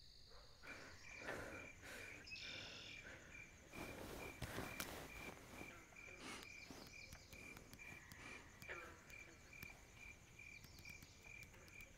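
Faint cricket chirping in an even rhythm, about three chirps a second, with a few soft rustles and clicks.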